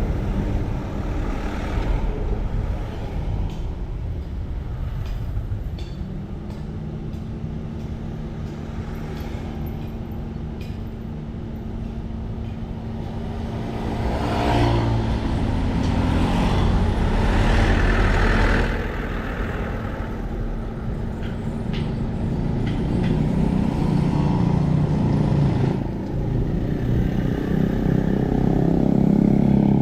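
Road vehicle engines and traffic noise, fairly loud. A steady low engine tone holds through the middle, and the noise swells louder for a few seconds twice.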